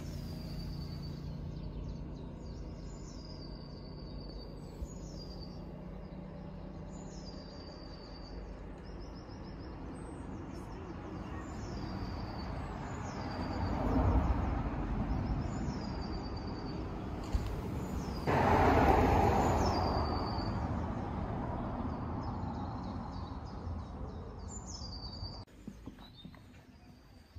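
A small bird singing the same short, falling phrase over and over, about once every second or two, over a steady outdoor rumble. A louder rush of noise swells about halfway through and more strongly around two thirds of the way in.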